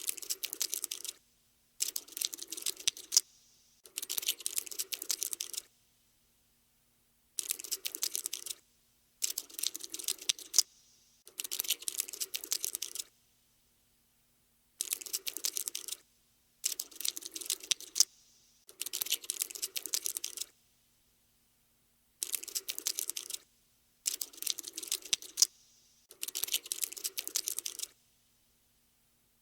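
Cockroach scuttling sound effect: about a dozen bursts of rapid dry clicking, each lasting one to two seconds, separated by short gaps of dead silence.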